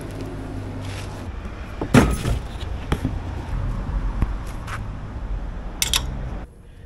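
Steady low outdoor rumble of wind on the microphone or street traffic, with a handful of sharp knocks and clatters from walking and handling a bag, the loudest about two seconds in. Near the end comes a metallic clatter as a hand pushes a white metal gate.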